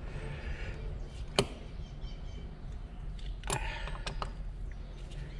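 A few sharp clicks and knocks of string trimmer parts being handled: one about a second and a half in, then a short cluster about three and a half seconds in, over a low steady hum. The trimmer's engine is not running.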